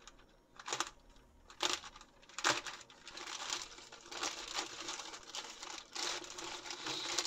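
Plastic courier mailer bag crinkling as it is handled and cut open: three short crinkles in the first few seconds, then steady crinkling from about three seconds in.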